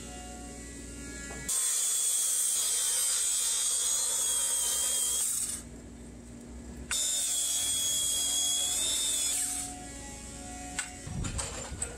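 Cordless Makita circular saw cutting into a timber beam: a loud high whine as the blade runs through the wood for about four seconds, a short break of about a second, then a second cut of about two and a half seconds. Quieter clicks and rattles near the end as the saw is handled.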